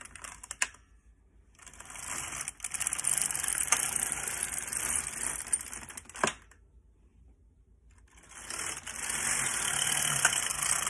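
Carriage of a Silver Reed LK150 knitting machine pushed across the needle bed, a rasping clatter of needles knitting a row of stockinette that ends with a clack. After a pause of about two seconds the carriage is pushed back for the next row.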